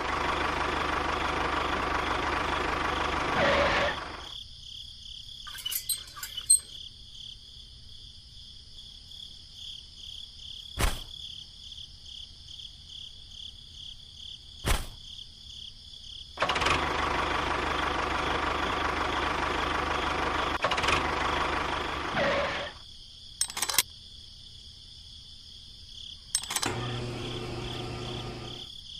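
Small electric motor of a homemade toy tractor running in two spells, one of about four seconds at the start and one of about six seconds in the middle. In the quiet between them a steady high insect-like chirring carries on, with a few sharp clicks.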